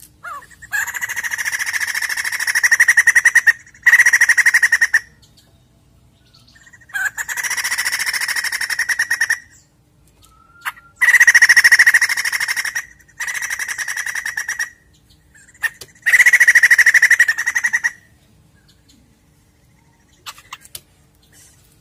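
White-crested laughingthrush singing loudly: repeated bouts of rapid, rattling cackles, each a few seconds long with short pauses between, the bouts stopping a few seconds before the end.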